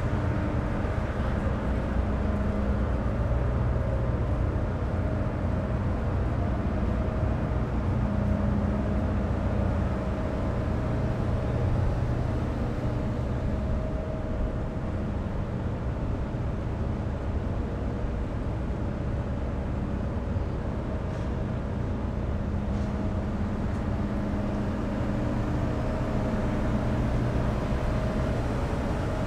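The Queen of Capilano ferry's engines droning steadily under way, a low, even rumble with a constant engine hum.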